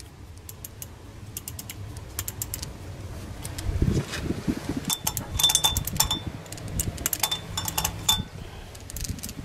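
Hand socket ratchet clicking in quick runs as bolts on the engine's front timing area are turned, with a few dull knocks about four seconds in.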